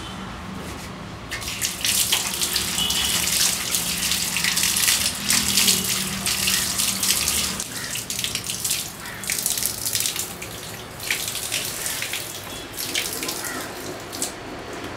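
Water from a wall tap running and splashing in a small tiled bathroom as someone washes under it. The splashing is irregular, starts about a second in, and thins out near the end.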